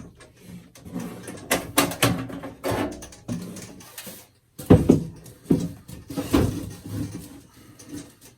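Irregular knocks, clunks and scrapes from the metal case of an IBM PC expansion unit being handled as its cover is worked off. The loudest clunks come about two-thirds of the way through.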